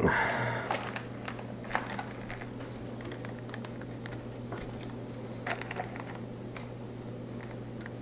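Scattered light clicks and taps of hands handling small computer parts and hardware, a few sharper ticks spread irregularly, over a faint steady low hum.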